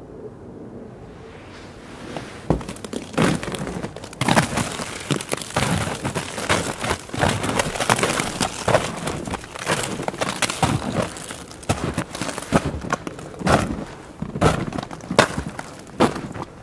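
Boots crunching in fresh snow: footsteps begin about two seconds in, roughly one to two a second, as someone walks down snow-covered steps and onto snowy ground.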